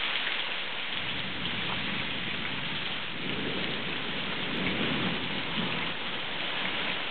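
Heavy rain pouring steadily onto grass and a gravel driveway, with a low rumble of thunder swelling about three seconds in and fading near the end.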